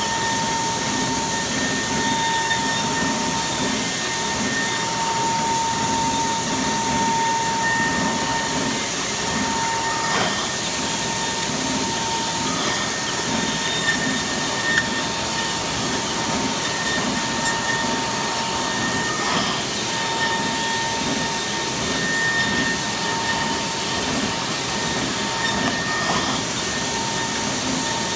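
Kongsberg XP cutting table's milling spindle running at 55,000 rpm, routing 1-inch Gator foam board at 500 inches per minute: a steady high whine over a broad hiss.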